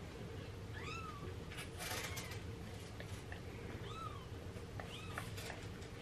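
Days-old orphan kittens mewing faintly: four short mews, each rising and falling in pitch, with a few soft clicks between them.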